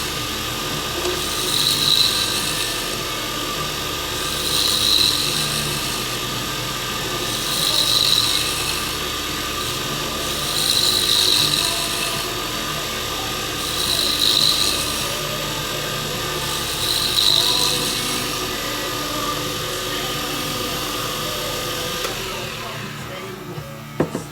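Wood lathe running steadily while a carbide turning tool shapes a spinning stabilized burl pen blank, the cutting scrape swelling about every three seconds as the tool is passed along the blank. The lathe noise drops away near the end, followed by a few sharp clicks.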